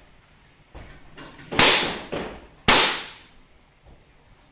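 Two firearm shots about a second apart, each sharp and followed by an echoing tail, after a fainter knock near the start.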